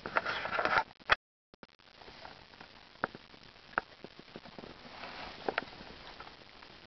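Water sloshing in a bucket of live hagfish for about a second, then the sound drops out suddenly. After that there is only faint rustling with a few scattered small clicks.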